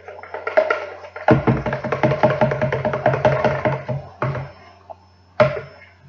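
A spoon stirring slime in a bowl, giving fast rhythmic clacks for a few seconds, then a few single knocks.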